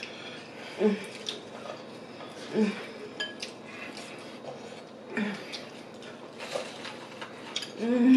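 Close-up eating sounds: a spoon clinking and scraping in a bowl of mashed potatoes, and chewing of fried chicken, with a few short hums from the eaters.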